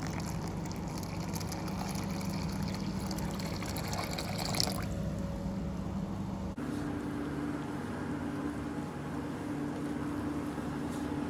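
Warm water poured in a stream from a cup into a bowl of dry flour, splashing and stopping about five seconds in. After that a steady low hum runs on.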